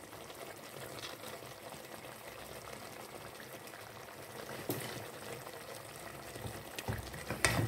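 Pot of curry chicken simmering in its own juices, a soft steady bubbling hiss, with a couple of light knocks about five seconds in and near the end.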